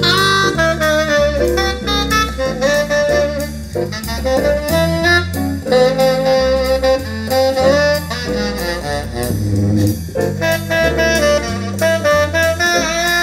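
Saxophone-led jazz with bass and drums, played through a pair of 1991 Infinity RS 1001 two-way bookshelf speakers as a listening test.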